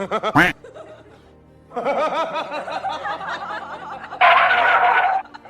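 Human laughter over music: a short loud sound in the first half second, then repeated laughing from about two seconds in, growing into a louder, denser burst near the end.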